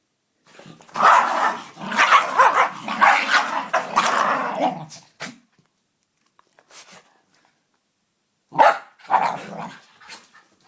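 A dog growling and barking in a loud run lasting about four seconds, then another short burst near the end.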